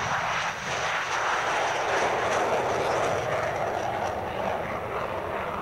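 Jet noise from a Grumman F-14 Tomcat's twin engines as it lifts off and climbs away from the runway: a steady rushing noise that swells about two seconds in and eases a little near the end.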